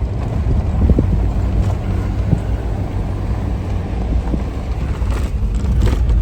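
Steady low rumble of a 4x4 vehicle driving on a rough, bumpy mountain road, with wind buffeting the microphone.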